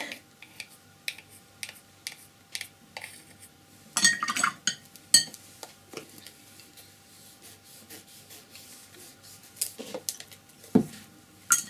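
Scattered light clicks and taps, with a short rustling cluster about four seconds in and a sharp tap just after: a tube of white gouache paint being handled, with its cap and the palette plate.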